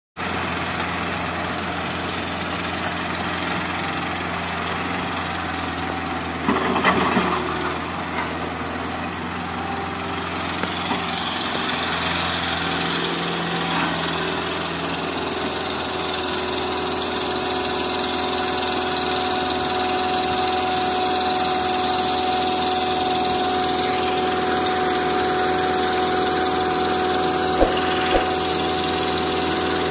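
Hitachi Zaxis 110 MF excavator's diesel engine running steadily as it works. A brief louder clatter comes about six and a half seconds in. A steady high whine joins about halfway through.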